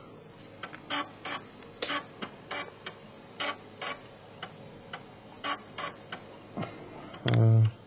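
Amiga 1200 floppy drive clicking repeatedly, irregular sharp ticks about two a second: the drive polling for a disk. A short voiced sound from a person comes near the end.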